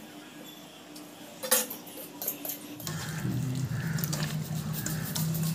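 A knife clacks sharply once about one and a half seconds in, with a few lighter taps, while raw chicken is cut. From about three seconds in, hands squelch raw chicken pieces through a runny egg marinade in a steel bowl, with clinks against the bowl over a steady low hum.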